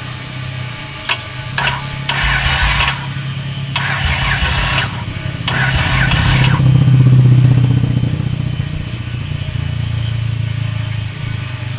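Starter cranking a six-cylinder Volvo diesel engine, with only two of its six glow plugs working, in several short bursts of about a second each without it catching; a steady low hum runs underneath. The cranking lacks power: the engine seems to need 24 volts and is not being fed enough.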